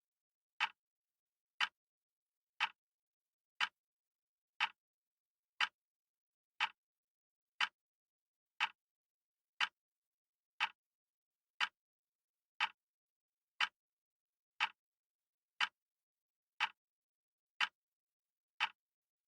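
Clock ticking sound effect for a countdown timer: one short, sharp tick every second in an even rhythm, with complete silence between ticks. The ticking stops near the end.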